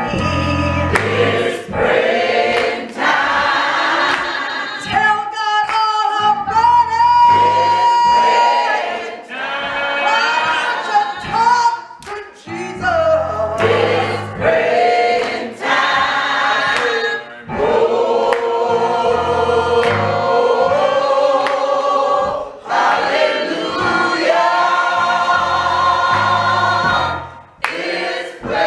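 Gospel choir singing, with low keyboard bass notes underneath.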